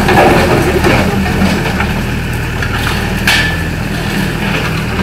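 Volvo EW60C wheeled excavator's diesel engine running steadily, with a sharp knock about three seconds in.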